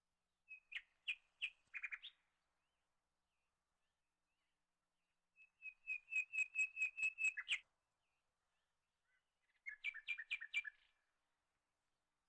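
A bird chirping in three bursts of quick repeated notes, about four or five a second, the middle burst the longest and loudest.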